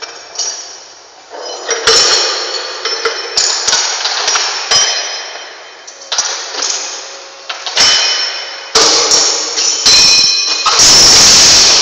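Repeated loud metallic clanging and banging with lingering ringing tones, from a steel cargo box and its crane hook rigging knocking against the steel of an empty ship's hold. The knocks come every second or so and become almost continuous near the end.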